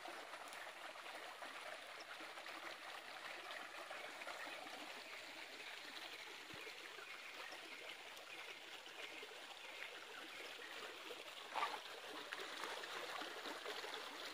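Shallow stream running steadily over rocks, a continuous rushing trickle. About eleven and a half seconds in there is one brief, sharper sound over it.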